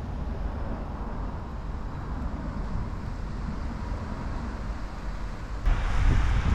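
Petrol lawn mower engine running steadily, turning suddenly louder about five and a half seconds in.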